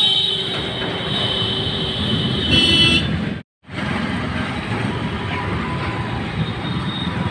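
A vehicle horn sounds, held for about three seconds over road traffic noise. After a short break, puris sizzle as they fry in a kadhai of hot oil, with traffic in the background.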